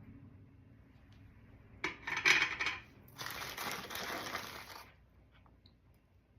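Packing wrap crinkling and rustling in two bursts as a piece is unwrapped from the box, the second burst longer and brighter.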